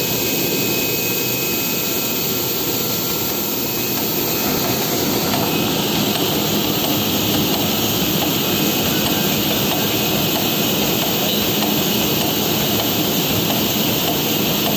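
CNC knife cutting machine for shoe uppers running, a loud steady rushing noise from the vacuum blower that holds the material flat on the cutting table; it grows a little louder about five seconds in.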